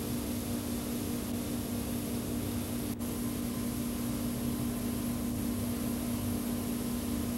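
Steady hiss with a constant low hum, dipping out briefly about three seconds in; no piano notes are played.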